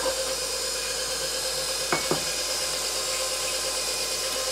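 KitchenAid Professional 5 Plus stand mixer running steadily at an even hum while it mixes batter in its steel bowl. There are two light knocks about two seconds in.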